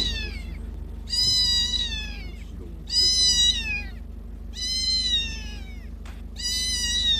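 Very young ginger kitten meowing over and over, a high call about every two seconds, each dropping in pitch at its end. A steady low hum of the car runs underneath.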